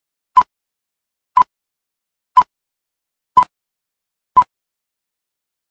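Film-leader countdown beeps: five short beeps on one steady pitch, one each second, with silence between.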